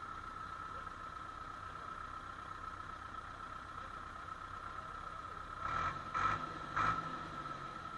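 Tractor's diesel engine idling, with a steady high whine over a low rumble. Near the end, three short loud bursts of noise come about half a second apart.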